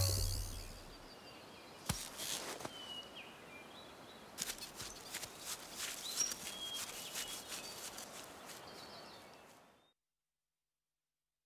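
Quiet woodland ambience with small birds chirping briefly now and then. A single soft thud comes about two seconds in, and a run of light clicks and rustles follows from about four to eight seconds in. It all fades to silence near the end.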